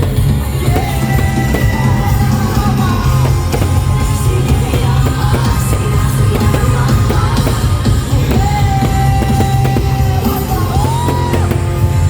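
Loud music with a heavy, steady bass and a singing voice holding long notes.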